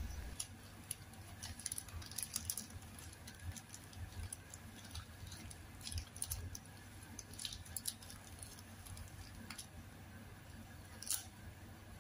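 Faint rustling and crinkling of a paper wrapper being folded by hand around a kebab: scattered soft crackles, with a louder one near the end.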